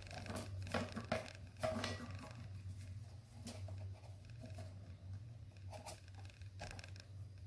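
Paracord being wrapped and pulled tight around a wooden dowel to lash on a steel arrowhead: soft rubbing and rustling of the cord, with a few sharper clicks and scrapes in the first two seconds and again near the end. A low steady hum runs underneath.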